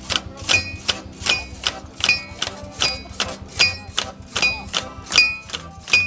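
Scythe blades being peened with hammers on small anvils by several men together: rhythmic metallic strikes, about three a second, each ringing briefly at one clear pitch.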